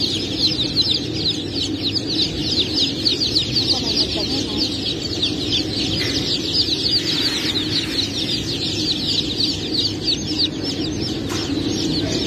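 Dense chorus of young crossbred Cao chicks peeping in crates: many high, short, falling peeps overlapping without a break. A steady lower noise runs underneath.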